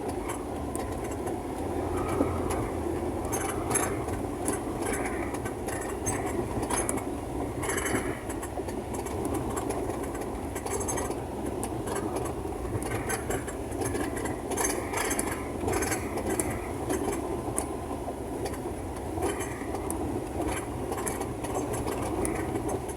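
Vehicle running along a rough road, heard from inside the cabin: a steady drone of engine and road noise with frequent short rattles and clinks throughout.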